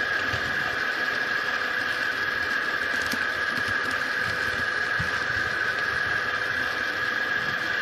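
HO-scale model train running steadily along the track: a constant mechanical whir with a high hum, from the motor and gearing and the wheels rolling on the rails, with a few light clicks.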